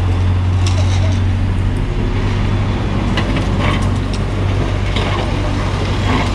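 Hyundai 55 wheeled excavator's diesel engine running steadily with a low hum. Scattered short clicks and knocks sound over it.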